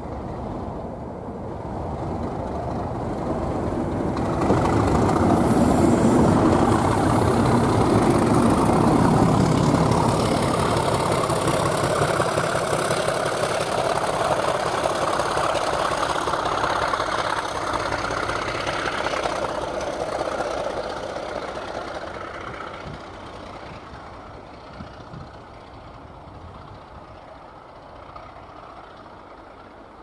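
A pair of Class 37 diesel locomotives, each with an English Electric V12 engine and fitted with snowploughs, approaching, passing close by and running away. The sound builds over the first few seconds, stays at its loudest for about fifteen seconds as they go past, then fades steadily.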